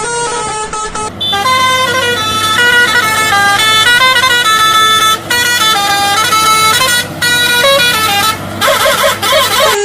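Indian truck musical horn playing a tune of stepped pitched notes, broken by a few short pauses, with a fast warbling tone near the end.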